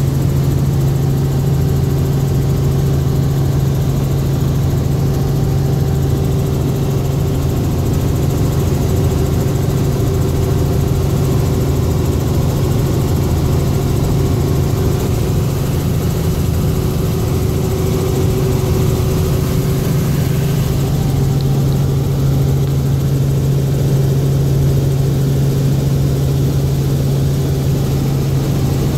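Helicopter engine and rotor noise heard inside the cabin in flight: a loud, steady low drone that holds level throughout.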